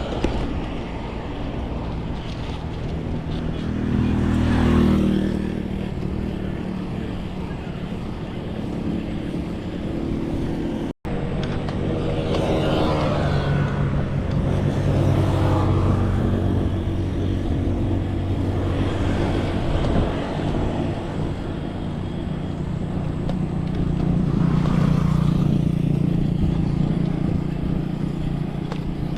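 Road traffic: motor vehicle engines droning and swelling as they pass, several times. The sound cuts out completely for a split second about eleven seconds in.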